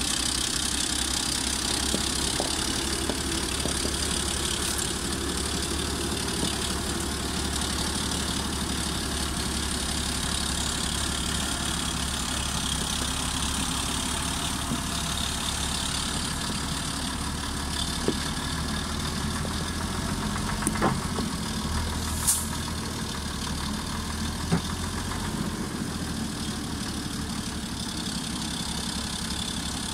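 FAP 4x4 truck's diesel engine running steadily at low revs as the loaded truck crawls along, with a few short sharp knocks about two-thirds of the way through.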